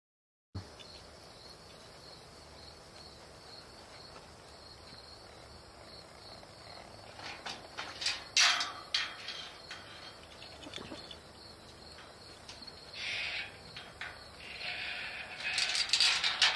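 Metal tube ranch gate clanking and rattling as it is unlatched and swung open from horseback: sharp clicks about eight seconds in and rougher rattling near the end. Under it runs a steady pulsing drone of insects.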